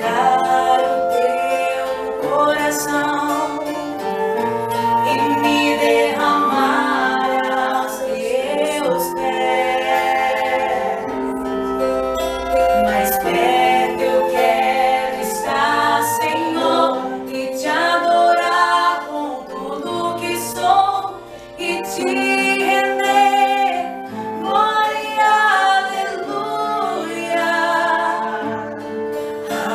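Vocalists singing a slow song with acoustic guitar and keyboard accompaniment, the sung phrases rising and falling over held chords.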